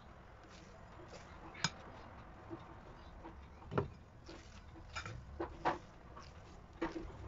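Silicone spatula stirring flour into thick batter in a glass bowl, with a handful of sharp clicks and knocks as it strikes the bowl, the loudest near the middle.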